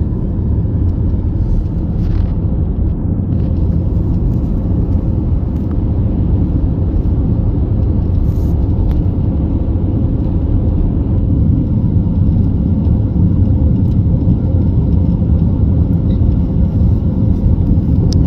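Steady low road and engine rumble of a moving vehicle heard from inside the cabin, growing slightly louder toward the end.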